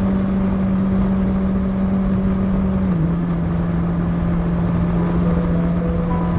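Motorcycle engine running at a steady cruising speed under wind rush, its note stepping down slightly about three seconds in.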